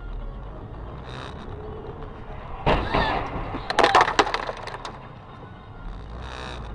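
A sudden loud impact about three seconds in, then a second later a rapid cluster of sharp cracks and clattering, as in a car collision, over a steady low hum from the car.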